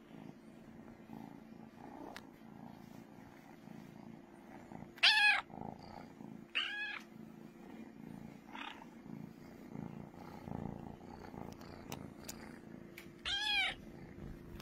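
Kitten purring steadily and loudly while being stroked, breaking off into three short meows: about five seconds in, again a second later, and near the end.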